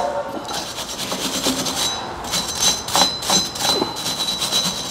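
Wire brush scrubbing rust and brake dust off the bare metal rear wheel hub face in quick repeated back-and-forth strokes, with a faint steady high whine behind it.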